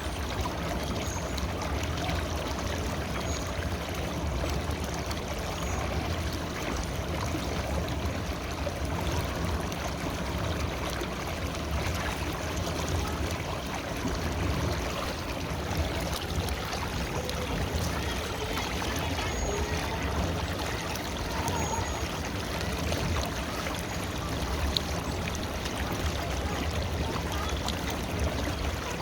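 River water flowing and babbling steadily over its bed.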